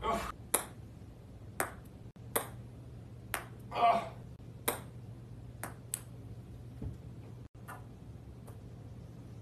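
Ping-pong balls struck with a golf club and bouncing, a string of sharp clicks at uneven intervals, the loudest about four seconds in.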